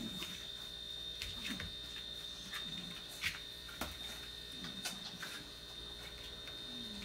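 Steady faint electrical hum, with a few soft clicks and taps from a plastic syringe and glass vial being handled as sterile diluent is drawn up.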